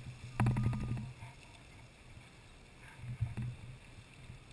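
Lady Knox Geyser erupting: a steady rush of water and steam. About half a second in comes a short burst of rapid clicking and knocking with a low thump, and there is a fainter knock about three seconds in.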